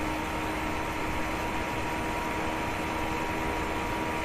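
Steady background hum and hiss of room noise, with a few faint steady tones and no distinct events.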